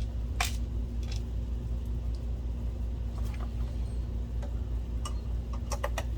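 A small screw is being driven into a DLP projector's optical assembly by hand, with scattered light clicks and ticks of the screwdriver and metal parts. A steady low hum runs underneath.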